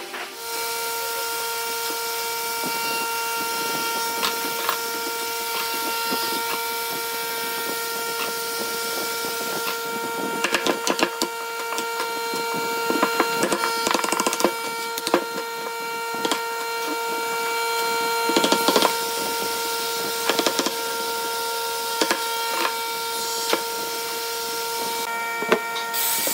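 A hammer knocking on glued-up wooden boards and blocks, sharp taps in scattered clusters, over a steady high-pitched hum.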